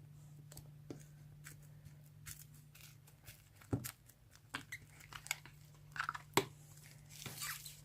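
Sponge slime being squeezed and pulled apart by hand, giving irregular crackling, tearing and sharp popping clicks, loudest about halfway through and again a little later. A faint low hum runs underneath.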